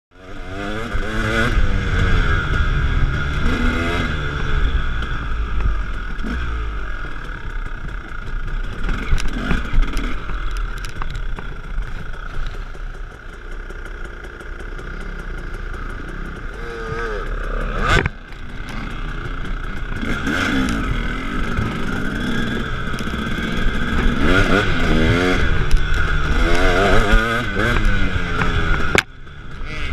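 Dirt bike engines being ridden over trail, the revs rising and falling again and again as the throttle opens and closes, with some rattle from the bike. The sound breaks sharply once partway through and dips briefly near the end.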